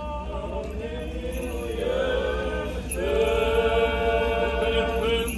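Orthodox funeral chant sung by several voices in long held notes, moving to a new, louder held note about three seconds in.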